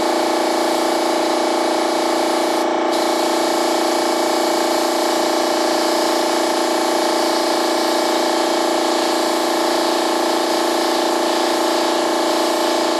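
Air compressor running steadily: a constant hum with a hiss over it from a spray gun on an air hose misting paint.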